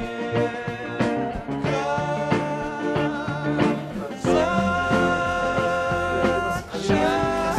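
Background music: a song with a steady beat and long held notes that bend in pitch.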